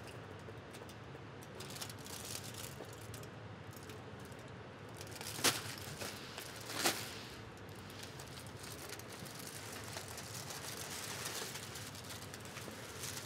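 Live improvised sound of objects being handled: a continuous rustling, crackling noise, with two sharp strikes about a second and a half apart near the middle.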